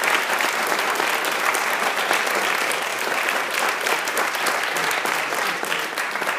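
An audience applauding, dense clapping held at a steady level.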